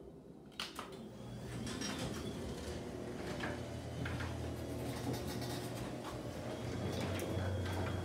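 Garage door opener starting with a click about half a second in, then its motor running with a steady low hum as the sectional door closes. The rollers click and rattle along the tracks.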